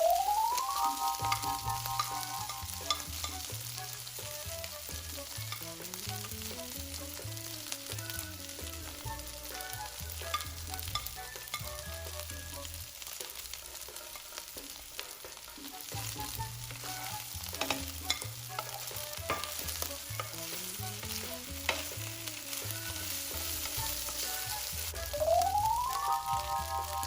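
Rice sizzling in a hot pan as it is stir-fried, with scattered clicks and scrapes of the utensil against the pan. Quiet background music with a bass line plays underneath, with a rising chime near the start and again near the end.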